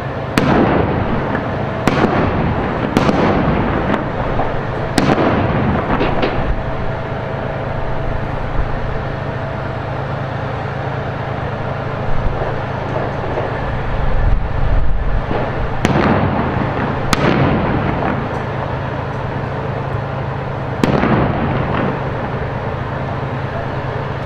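Gunfire and explosions in street combat: a series of sharp, echoing reports, five in quick succession in the first six seconds and three more between about sixteen and twenty-one seconds in. Underneath runs a steady low engine drone from armoured vehicles.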